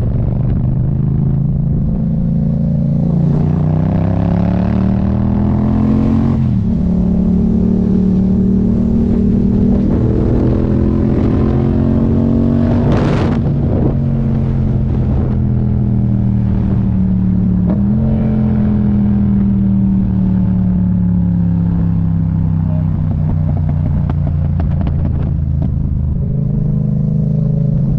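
Yamaha MT-07 parallel-twin motorcycle with an aftermarket exhaust line, running under way. The engine note climbs over the first few seconds, drops, then rises and falls again as the rider opens and closes the throttle. There is a brief rush of noise about halfway through.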